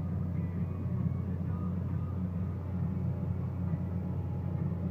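Tour boat's engine running with a steady low drone.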